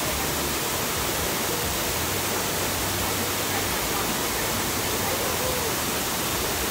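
Water pouring over a wide stone weir, a steady, even rush of noise that does not change.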